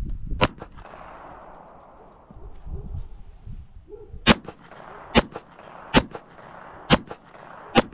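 Beretta 85 pistol firing .380 ACP full metal jacket rounds: a single shot about half a second in, then after a pause of nearly four seconds a string of five shots just under a second apart, each trailed by an echo.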